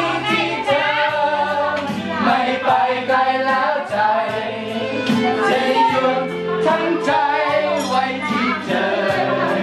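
Karaoke singing of a Thai song into handheld karaoke microphones, over a backing track with a steady beat.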